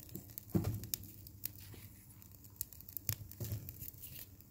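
Small kindling fire crackling in a wood stove's firebox, with many quick irregular pops and snaps and a few soft knocks.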